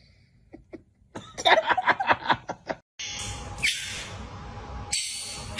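A person laughing in a quick run of bursts for about two seconds, then an abrupt cut to a steady hiss with a faint hum.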